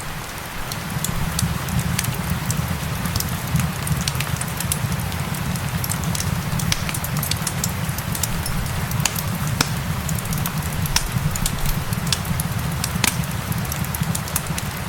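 Fireplace fire crackling, with frequent sharp pops and snaps, over a steady hiss of rain and a low rumble.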